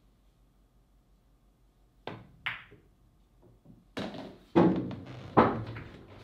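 A pool shot: a sharp cue-tip click on the cue ball about two seconds in, the click of the cue ball striking the object ball just after, then heavy thunks from about four seconds in as the pocketed ball drops through the corner pocket into the table's ball return, the loudest two about a second apart.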